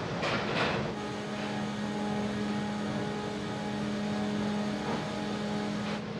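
Engine drone: two rushing surges in the first second, then a steady hum with a low tone and overtones, typical of vehicles and ship's machinery at a ferry's loading ramp.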